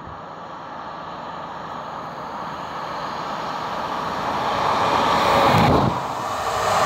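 Passenger train approaching and passing close by: a rising rush of wheels on rails that swells steadily and is loudest about five and a half seconds in, then drops away briefly before a second surge of train noise.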